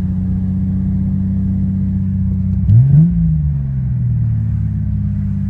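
Toyota Supra engine idling steadily, with one quick blip of the throttle about halfway through that rises and falls back to idle.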